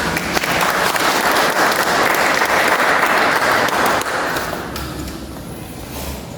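A crowd applauding, steady for about four seconds and then dying away.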